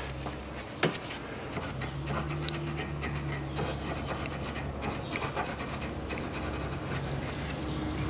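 Irregular scraping and rubbing at the lower ball-joint end of a front stabilizer link as it is cleaned of dirt and corrosion before being sprayed with penetrating oil.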